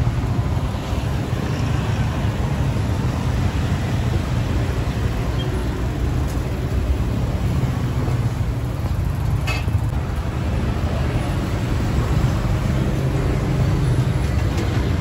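Steady street traffic noise, a low rumble of passing vehicles, with one short click about nine and a half seconds in.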